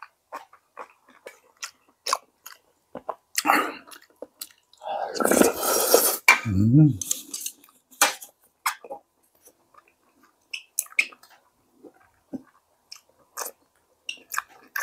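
A person eating hand-torn dough soup close to the microphone: wet chewing and lip smacks. About five seconds in comes a long noisy slurp, followed by a short hummed 'mm'.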